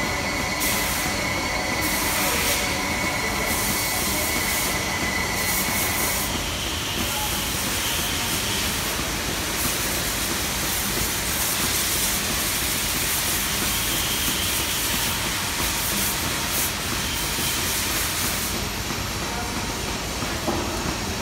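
Steady workshop machinery noise with a continuous hiss, with faint steady whines in the first few seconds.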